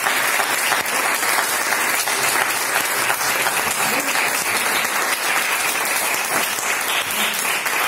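Applause: a group of people clapping steadily and thickly, with no pause.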